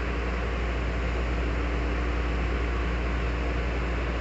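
Steady hum and hiss of a Metrorail car's air conditioning and onboard equipment while the train stands at a station with its doors open, with a low drone and a faint steady tone underneath.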